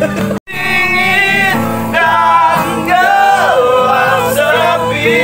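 A song: a singer's voice over instrumental backing, holding and sliding between notes. The sound drops out briefly about half a second in.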